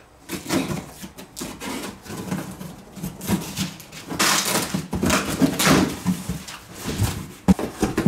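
A cardboard box's packing tape being slit open with a small cutter, in irregular rasps and scrapes of blade and cardboard, then the cardboard flaps pulled open with a few knocks near the end.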